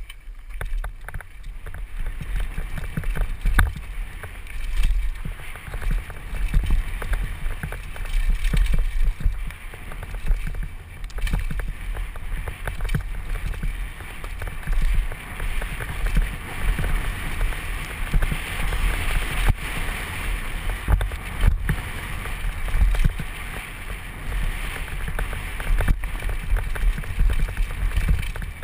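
Downhill mountain bike descending a rocky dirt trail, heard from a helmet-mounted camera: tyres running over loose dirt and stones and the bike rattling over bumps in an uneven stream of knocks, over a constant low rumble of wind buffeting the microphone.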